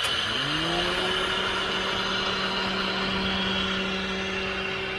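Toyota Avanza engine idling as the air conditioning kicks back in: just after the start, a whine from the AC system rises in pitch over about a second and then holds steady while the compressor's magnetic clutch stays engaged.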